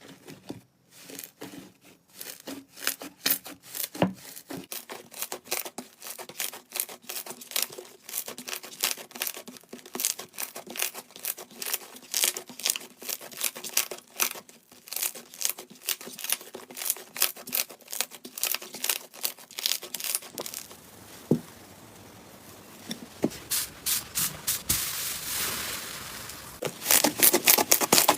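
Slime being squeezed, pressed and stretched by hand, giving a dense, irregular run of sticky crackling pops and clicks. The texture turns fuller about two-thirds through and gets louder near the end.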